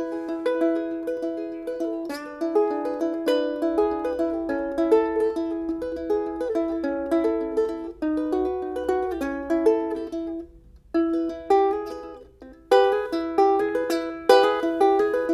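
Soprano ukulele played as a melody of single plucked notes over a repeated ringing lower note, pausing briefly twice about two-thirds of the way through before carrying on.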